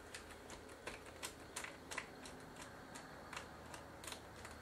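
Light, irregular clicks and taps, about two or three a second: a small screwdriver backing out the last screw that holds the handle onto a Sony DSR-PD170P camcorder, with the plastic handle and casing being handled.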